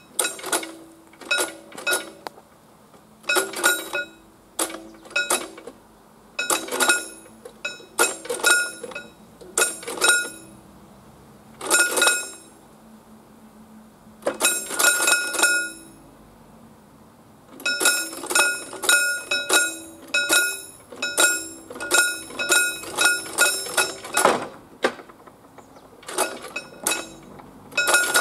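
Pre-warning bell of PZM1 mechanical level-crossing barriers ringing in rapid runs of metallic strikes with short pauses between them, warning that the barriers are being lowered.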